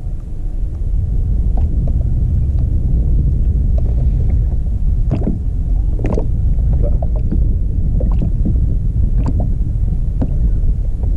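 Wind buffeting the microphone out on a kayak, a heavy steady low rumble, with a handful of short knocks scattered through it.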